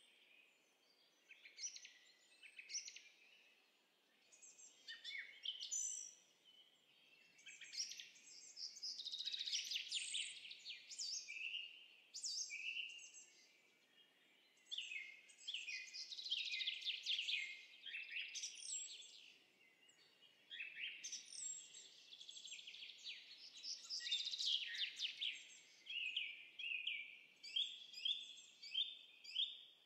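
Birdsong sound effect: birds chirping and trilling in quick, varied phrases with short lulls between them, ending in a run of evenly spaced chirps.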